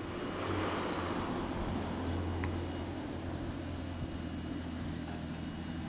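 Steady low engine hum under a haze of outdoor background noise.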